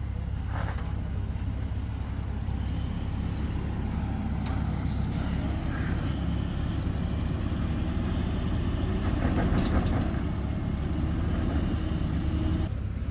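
Nissan Xterra SUV's engine running at crawling speed as it picks its way over a rock ledge, a steady low rumble that swells slightly about nine seconds in.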